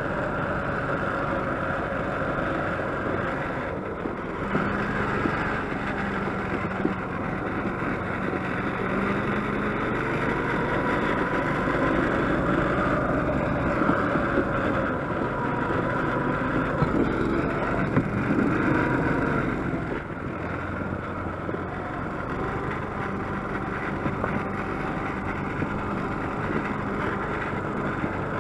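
Small gasoline engine of a homemade motor-dog tracked snow tug running steadily under load as it pulls a sled over snow, its speed rising and falling somewhat midway.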